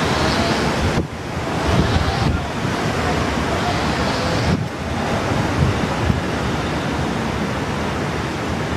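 Strong typhoon wind rushing and buffeting the microphone, with sudden shifts in loudness about a second in and again past the middle.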